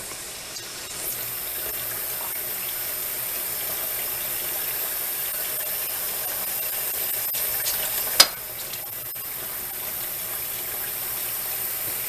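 Water running steadily from a kitchen tap into a sink, with one sharp knock about eight seconds in.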